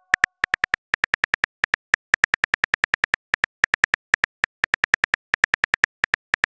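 Smartphone keyboard clicks, one short tick per letter as a text message is typed out, about nine a second with small gaps between words.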